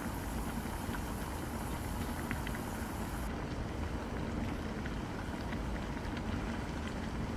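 Water boiling hard in a wok as pork belly is blanched, over a commercial gas wok burner whose flame gives a steady low rumble beneath the bubbling.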